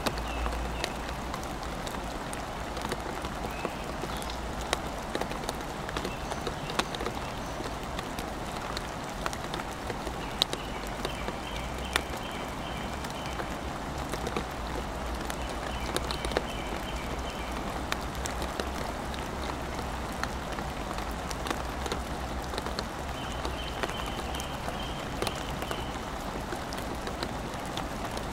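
Steady rain falling, with individual drops ticking sharply close by. A few faint high-pitched calls come and go in the background.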